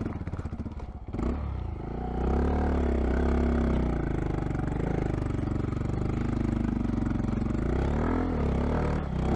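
Honda Monkey 125's single-cylinder four-stroke engine pulling the bike along a rough muddy track, picking up about a second in, its pitch rising and falling as the throttle is worked.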